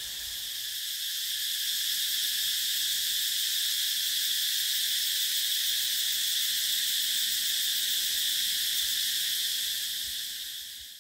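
A dense chorus of insects droning steadily in several high pitched bands, fading out near the end.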